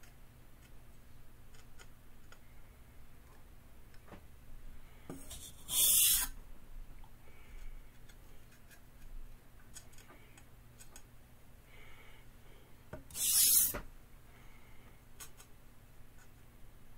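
Knife edge drawn lightly along a sharpening stone in edge-trailing strokes to work off a stubborn burr: a faint rubbing scrape with small ticks. Twice, about seven seconds apart, a short loud hiss cuts in.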